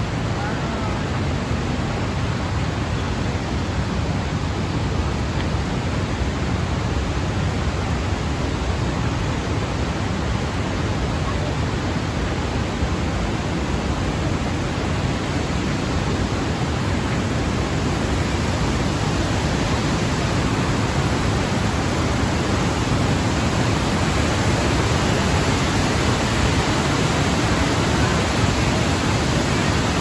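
Steady rush of a wide, multi-tiered waterfall pouring over rock ledges, growing slightly louder over the second half.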